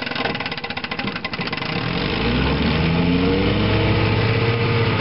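1960 Johnson 5.5 hp two-stroke twin outboard motor running under way. About two seconds in it grows louder and its pitch climbs, then eases back down near the end.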